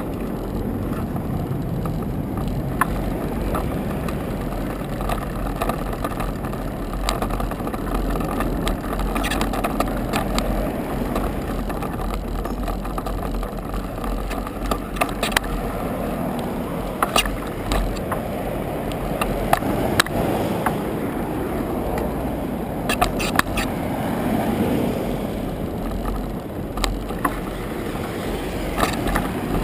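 Steady wind and road rumble on a bicycle-mounted camera's microphone while riding, with frequent short rattles and knocks from the bike over rough pavement. Cars pass on the road alongside.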